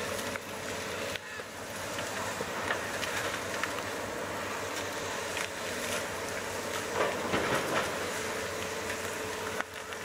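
Bulldozer diesel engine running steadily in the background with a low, even hum, with a few short knocks about seven seconds in.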